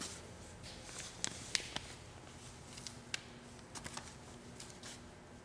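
A few light, sharp clicks and taps scattered over faint room tone, with a faint low hum in the second half.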